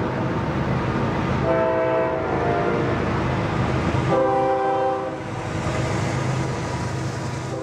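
Union Pacific diesel locomotive's multi-note air horn sounding in separate blasts, one about a second and a half in and a louder one about four seconds in, over the steady low rumble of the passing train.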